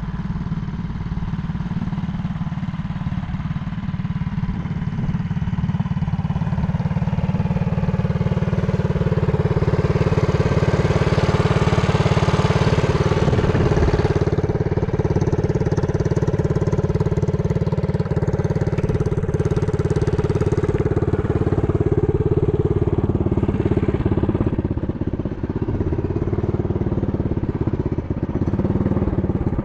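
TrailMaster Hurricane 200 mini bike's small single-cylinder four-stroke engine running. Its pitch climbs steadily for the first dozen seconds, eases back at about the halfway point, and drops lower near the end.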